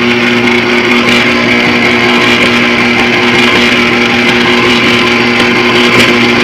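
Electric stand mixer running steadily, its motor giving a constant hum and whine as the beater churns thick pound cake batter in a stainless steel bowl.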